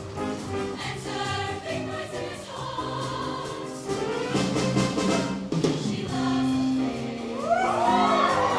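Show choir singing a swing number in harmony, over an accompaniment with a moving bass line and drum hits; the voices rise into a louder, fuller passage near the end.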